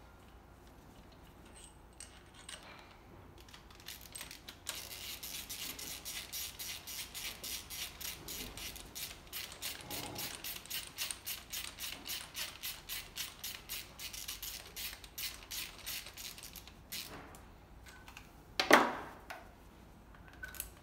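Ratchet wrench clicking steadily, about four clicks a second, for some twelve seconds. Near the end there is a single loud, sharp knock.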